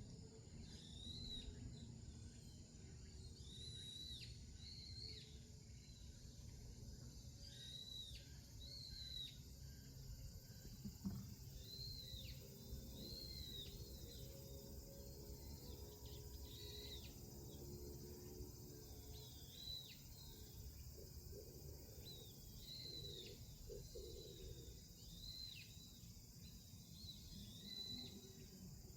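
Faint outdoor field ambience: a bird repeating short arched chirps, one every second or two, over a steady low rumble.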